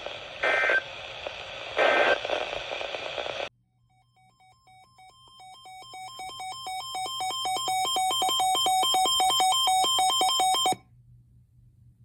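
Emergency Alert System end-of-message data bursts off a weather radio: short bursts of warbling data tone over radio static, two of them in the first two seconds, and the static cuts off at about three and a half seconds. Then a rapid run of electronic beeps fades in, grows loud and stops abruptly near the end.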